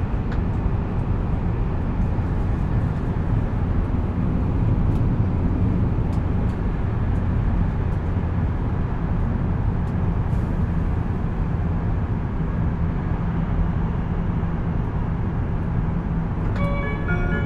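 Cabin running noise of a JR East E7 series Shinkansen at speed: a steady low rumble from the wheels and the running gear. Near the end the onboard chime starts, a short tune of clean stepped notes that comes before the arrival announcement.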